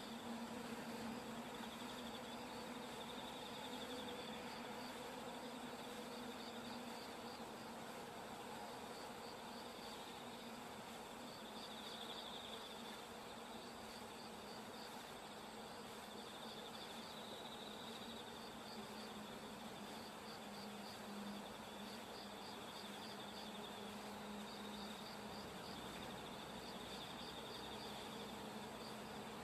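Insects calling faintly: rapid high-pitched pulsing chirps, with a steadier buzzing trill that swells and fades every several seconds.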